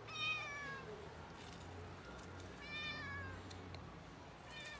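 Ginger-and-white stray cat meowing for food: three meows, each falling in pitch, the first the loudest and the last starting near the end.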